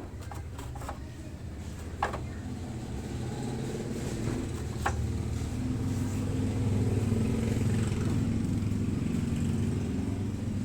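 A motorcycle engine running steadily, growing somewhat louder past the middle, with two sharp clicks about two and five seconds in.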